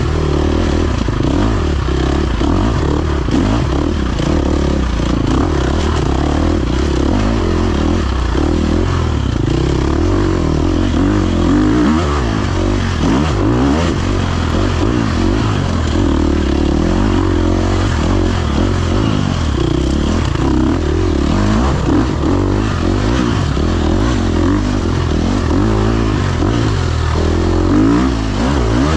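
Off-road dirt bike engine running hard under changing throttle through a trail race, heard from the rider's own bike.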